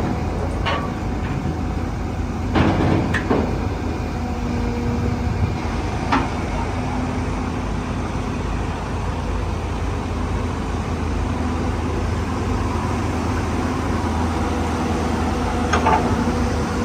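Heavy diesel engine of a Hyundai 220-9S crawler excavator running steadily, with a few sharp clanks scattered through, the loudest about two and a half seconds in.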